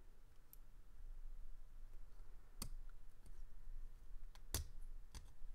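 A few sparse, light clicks of small knife parts being handled: the pivot hardware being fitted into the raw-aluminum handle scales of a Benchmade Griptilian folding knife. The two sharpest clicks come about two seconds apart.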